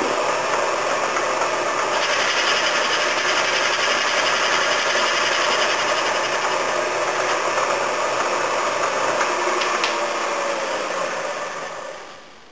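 Bridgeport milling machine running with a boring head cutting a counterbore in a two-stroke engine cylinder: a steady machining noise that gets a little brighter about two seconds in. It dies away near the end as the spindle stops.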